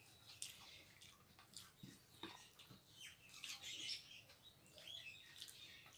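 Faint wet eating sounds: chewing, lip smacks and fingers squishing rice with thin chicken curry, in scattered small clicks and squeaks.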